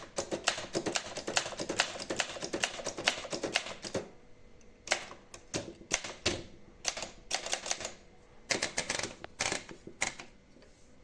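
Olympia Monica manual portable typewriter being typed on: a fast, continuous run of keystrokes for about four seconds, then shorter bursts of typing separated by brief pauses.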